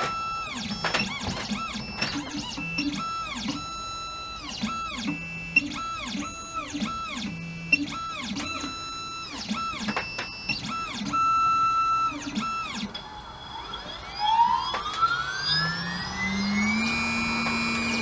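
Computerised key-cutting machine starting a code-cut job: its stepper motors whine in repeated ramp-up, hold, ramp-down moves as the carriage positions the key blank. From about 14 s the cutter spindle spins up with a rising whine and then runs at a steady pitch.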